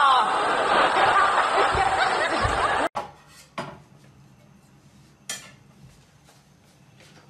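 A man's voice crying out loudly, which cuts off abruptly about three seconds in. Then come a few separate sharp clinks and knocks of kitchenware.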